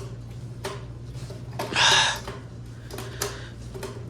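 Clicks and knocks of coins going into a coin-operated toy vending machine, with a short rattle of the coin mechanism about two seconds in, over a steady low electrical hum.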